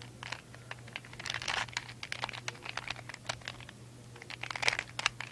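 Rubik's Cube being turned quickly by hand: fast runs of small plastic clicks and clacks, in bunches about a second in and again near the end.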